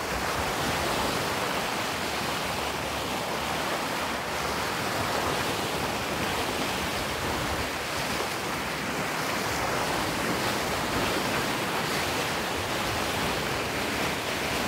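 Steady rush of water along a moving boat's bow, with wind on the microphone.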